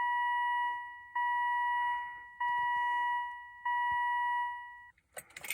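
Volvo S80 dashboard warning chime sounding over and over, one fading bell-like tone about every 1.2 seconds, stopping shortly before the end, followed by a few clicks.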